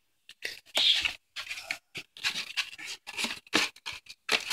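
Kittens clambering in and scratching at a small cardboard cracker box: irregular short rustles and scratches of claws on cardboard, with brief pauses between.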